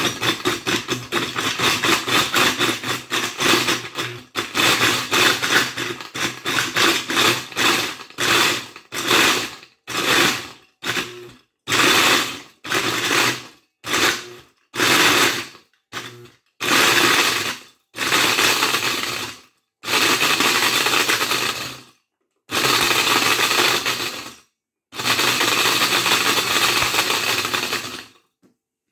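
Countertop blender with a glass jar grinding a handful of wooden pencils, the motor running under load as the pencils are broken up. It runs continuously for about eight seconds, then is pulsed on and off in short bursts, the bursts growing longer near the end.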